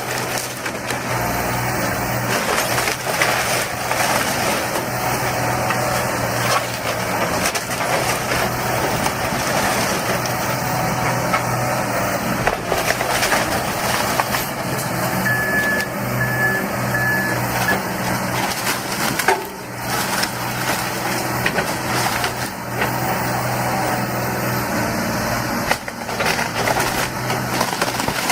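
Diesel engine of an excavator running steadily under load while material crunches and cracks in continuous demolition. A few short, evenly spaced high beeps come in about halfway through.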